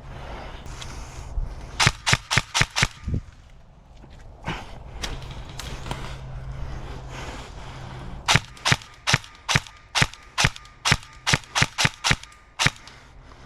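Airsoft electric gun, a BOLT MP5K, firing sharp single shots in strings: about five in quick succession around two seconds in, then a longer run of about fourteen, roughly three a second, from about eight seconds in.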